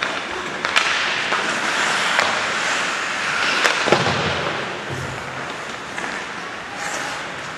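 Ice hockey play: skates scraping and hissing on the ice, with a few sharp cracks of sticks and puck. The loudest cracks come about four seconds in, followed by a dull thud.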